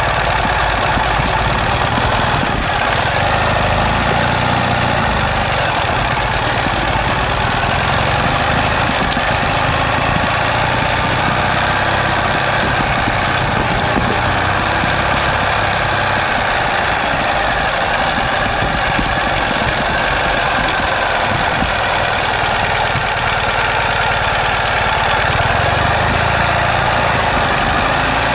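Ural sidecar motorcycle's air-cooled flat-twin engine running steadily at low revs while the outfit is under way.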